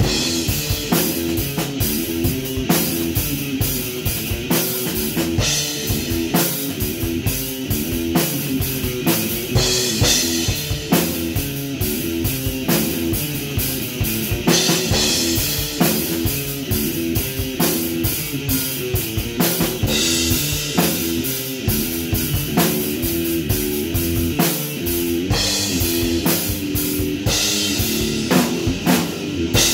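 Electric guitar playing a repeating rock riff over a steady drum kit beat.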